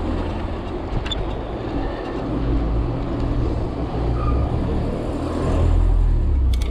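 Wind buffeting the microphone and tyre noise of a Gios FRX downhill mountain bike rolling fast down an asphalt street: a steady low rumble that swells to its loudest about six seconds in, with a couple of sharp clicks near the end.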